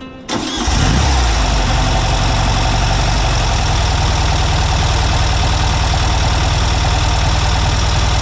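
Classic Volkswagen Beetle's air-cooled flat-four engine, coming in suddenly near the start and then running steadily at idle.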